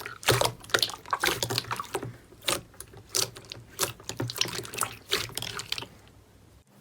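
Slime being squished and worked by hand: an irregular string of sticky, wet clicks and pops, several a second, that stops about six seconds in.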